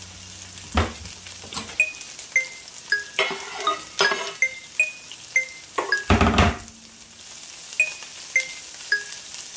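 A knife clinking and scraping as sliced onions are pushed off a wooden cutting board into a skillet and stirred, with a louder clatter about six seconds in. Light background music of short chiming notes repeats in a steady pattern underneath.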